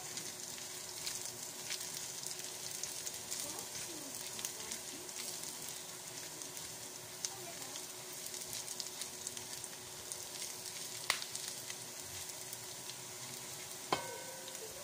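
Chopped garlic sizzling and crackling in hot oil in a frying pan as it is stirred with a spatula, with an occasional sharp click. A short pitched tone sounds near the end.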